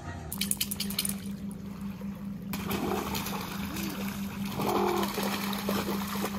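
Water splashing as a Doberman puppy and another dog run through shallow water at the shore, over a steady low hum. A few short pitched sounds come about halfway through.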